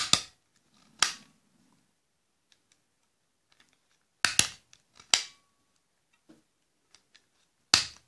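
Black desk stapler being squeezed shut through a folded strip of fur fabric, driving staples: a series of sharp clacks, mostly in pairs about a second apart.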